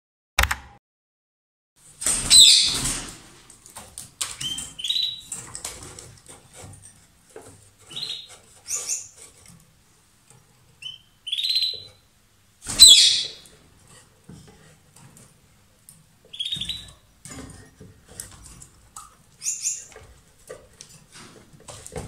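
Caged lovebirds giving loud, shrill, high-pitched chirping calls every few seconds. The two loudest calls come about 2.5 s and 13 s in, with shorter chirps between them.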